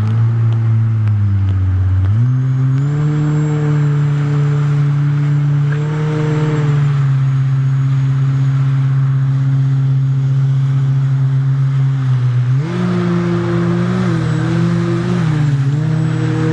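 Jet ski engine running under throttle, with a steady hum and the hiss of wind and water. The engine pitch steps up about two seconds in as it speeds up, then rises again near the end with small dips and recoveries as the throttle changes.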